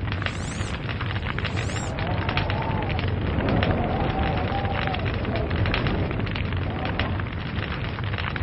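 Log fire crackling: a dense, irregular patter of small pops and snaps over a steady low rumble of burning, with a faint wavering tone rising and falling for a couple of seconds midway.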